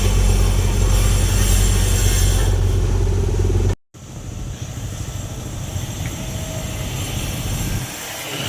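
Engine of heavy road-repair machinery running with a steady low hum; a little under four seconds in it cuts off abruptly and gives way to quieter, more even vehicle engine noise.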